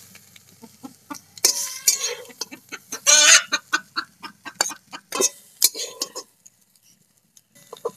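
Metal spatula scraping and clicking against an aluminium kadai as fried bottle-gourd greens are scooped out onto a plate, with hens clucking in between. The scraping stops a little after six seconds in and starts again near the end.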